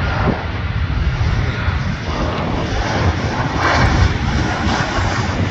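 Jet engines of a Boeing 737-700 (CFM56) landing: a steady rushing rumble as the airliner comes over the threshold and touches down, a little brighter around touchdown.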